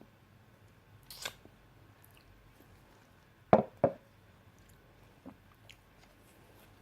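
Close-miked mouth sounds of eating peanut butter and banana: quiet wet clicks and smacks, a hissy burst about a second in, and two loud short sounds in quick succession about halfway through.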